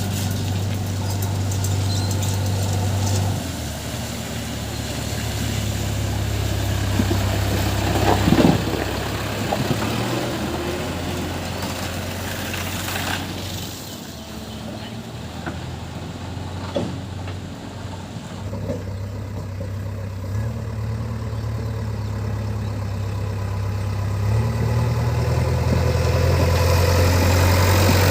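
JCB 3DX backhoe loader's diesel engine running steadily, its note stepping up and down several times as the load changes, with a few knocks and clanks from the machine along the way.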